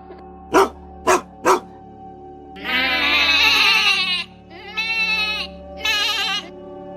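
Farm animal calls over background music: three short, sharp dog barks in quick succession, then three long, wavering bleats, the first about one and a half seconds long and the loudest.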